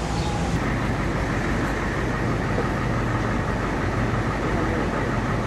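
Steady road and engine noise of a moving vehicle, an even rushing with a low hum underneath.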